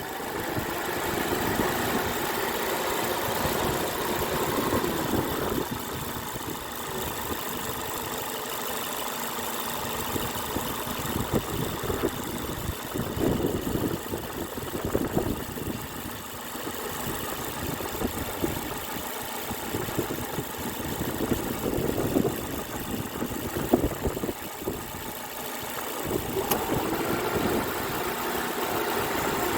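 2005 Toyota Corolla's 1.8-litre four-cylinder engine idling steadily, an engine that has an intermittent misfire at idle.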